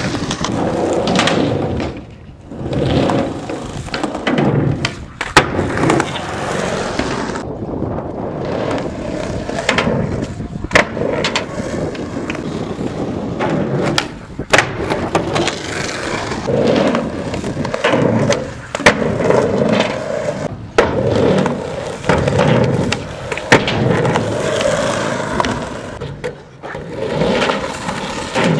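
Skateboard wheels rolling on a skatepark's concrete, broken by a series of sharp tail pops and clacking board landings from tricks.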